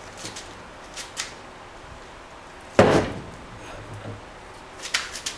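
Hand arbor press being worked on steel tool-post parts: a few light metallic clicks, then one loud clunk with a short ring about three seconds in as the ram forces a part into a press fit.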